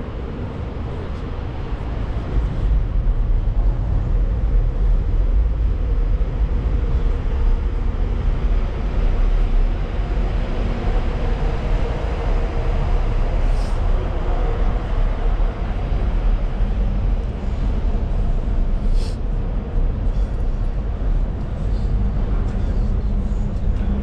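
Steady low rumble of vehicle or rail traffic, growing louder about two seconds in, with two brief sharp ticks partway through.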